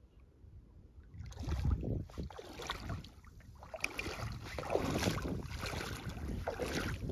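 Wind gusting across the microphone, starting about a second in as an irregular rushing buffet with low rumbles.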